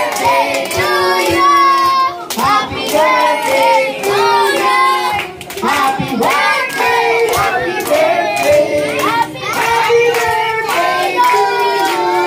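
Group of children and adults singing a song together, with hands clapping along.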